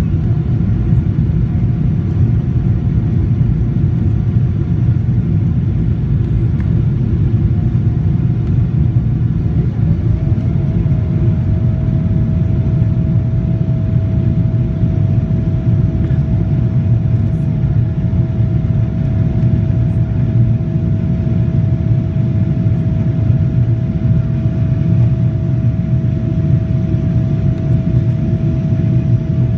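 Boeing 777-300ER's GE90 jet engines heard from inside the rear cabin: a loud, steady low rumble with a thin steady whine above it that drops slightly in pitch about ten seconds in.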